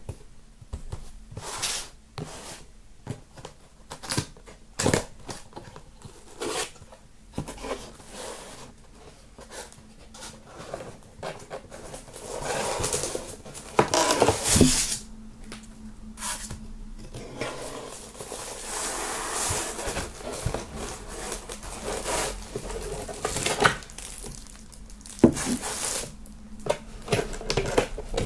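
Cardboard box being handled and opened: many short taps and clicks of the flaps and lid. A polystyrene foam insert rubs and scrapes against the cardboard as it is worked out of the box, in longer stretches in the middle and later on.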